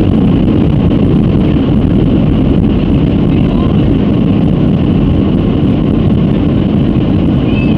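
Boeing 757-200 jet engines running at takeoff thrust: a loud, steady rumble with a constant high whine above it.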